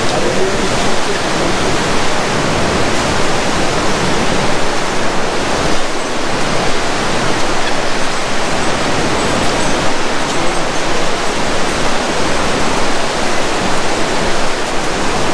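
The Mandakini River rushing, a loud, steady noise of fast-flowing mountain water.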